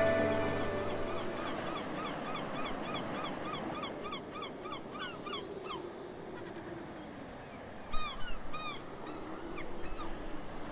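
Birds calling outdoors: a quick run of short calls, about three to four a second, each rising and falling in pitch, over a steady outdoor hiss, with a few louder calls about eight seconds in. The tail of background music fades out in the first second.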